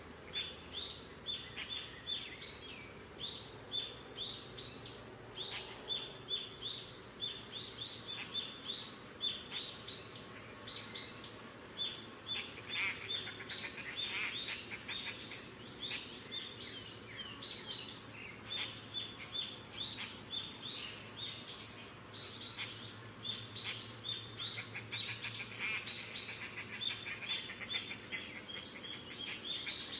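Small birds chirping continuously: a dense stream of short, high chirps, several a second, overlapping one another.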